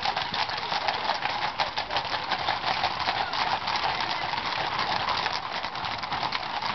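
Hooves of many horses clip-clopping on a tarmac road as a large group of riders passes at a walk and trot, a dense run of overlapping hoof strikes.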